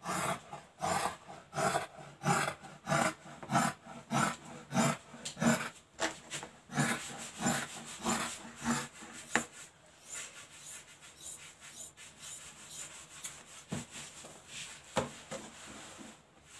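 Scissors cutting a long straight line through velour (mobra) dress fabric: a regular run of rasping snips, about two a second, for the first nine seconds or so. After that only soft handling of the cloth and a few light ticks.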